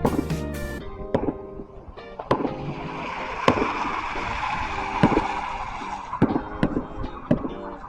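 Fireworks going off: several sharp bangs about a second apart, with a hissing crackle through the middle, over background music.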